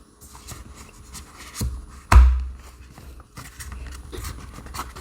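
Hands handling foam braces and a plastic doorbell mount: scattered small clicks and rustles, with one louder thump about two seconds in.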